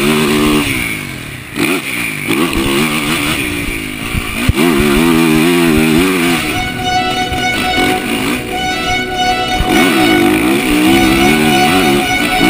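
Motocross bike engine revving hard, its pitch climbing and dropping again and again, mixed with guitar music that grows stronger about halfway through.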